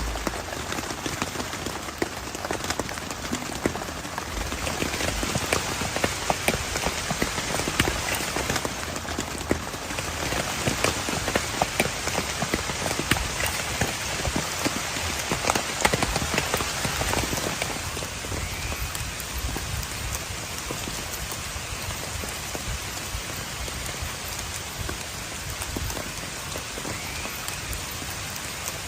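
Heavy rain falling steadily, a dense hiss of countless drops hitting a surface. It grows louder from about five seconds in, then eases off somewhat in the second half.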